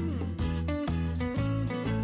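Background music with jingle bells shaking on a steady beat, about three strokes a second.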